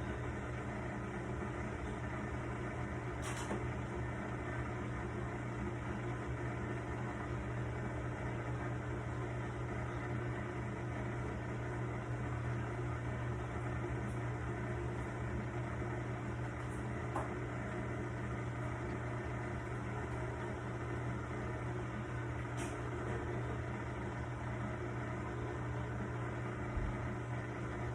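Panda PAN6320W portable washing machine running with a steady motor hum, with two faint ticks.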